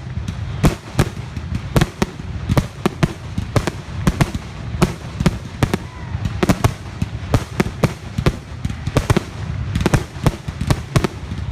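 Fireworks going off in rapid, irregular succession: many sharp bangs and cracks, several a second, over a continuous low rumble.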